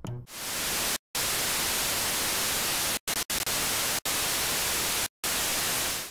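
Harsh television-static hiss, steady and even, cut by about five brief silent dropouts, the first about a second in and the rest between three and five seconds.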